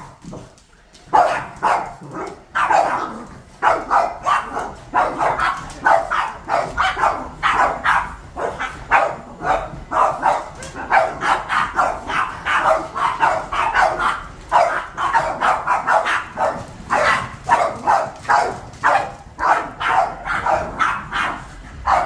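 Several Boston Terriers barking at a running cordless stick vacuum, rapid overlapping barks, several a second and almost without pause, starting about a second in.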